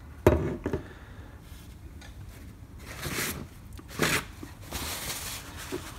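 A sharp knock as the small metal safe-lock case is set down on a wooden desk, followed by rustling of a cloth being handled, with another light knock about four seconds in.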